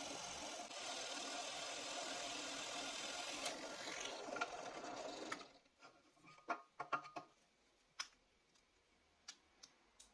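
Drill press running with a Forstner bit boring into a hardwood block: a steady motor hum with cutting noise. It stops abruptly about five seconds in, and a few sharp clicks and knocks follow as the wood is handled on the drill press table.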